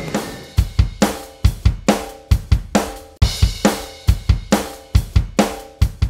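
A drum kit playing a steady beat: deep kick-drum thumps with snare and cymbal hits.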